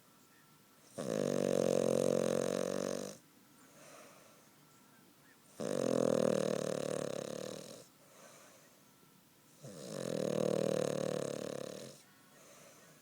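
Cavalier King Charles Spaniel snoring loudly in deep sleep: three long snores, each about two seconds, coming about every four seconds.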